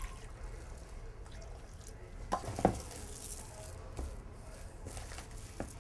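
Water trickling from a tap into a cup, and a hand squishing and stirring a wet paste in a bowl.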